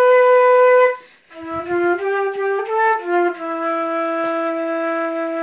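Silver concert flute played solo: a held note that breaks off about a second in, a short breath, then a quick run of notes settling about three seconds in onto a long, lower held note.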